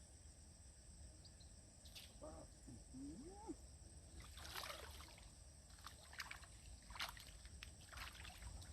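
Faint water splashes and sloshing, a few short ones spread through, over a steady high trill of crickets.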